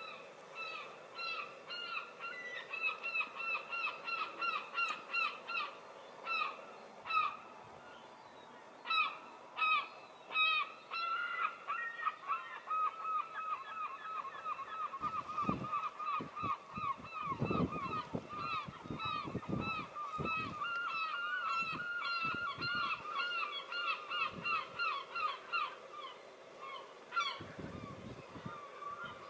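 A flock of geese honking continuously, with many short calls overlapping several times a second. A few low rumbles come through in the middle.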